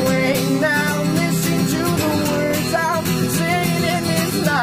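Acoustic guitar strummed steadily under a man singing a wavering melody line.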